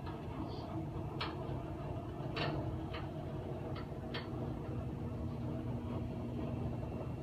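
About six short, sharp clicks at irregular times over the first four seconds or so, over a steady low hum of room noise.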